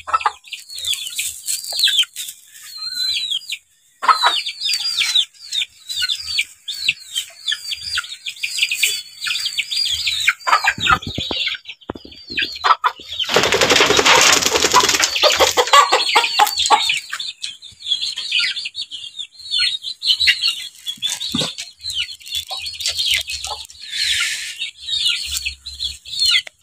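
Domestic chicks peeping continuously: many short, high, falling cheeps in quick succession. About 13 seconds in, a louder rough noise lasting some three seconds rises over them.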